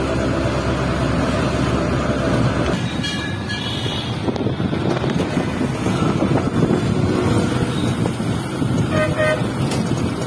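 Auto-rickshaw engine running as it drives through street traffic, heard from inside the open cab. Vehicle horns toot about three seconds in and again about nine seconds in.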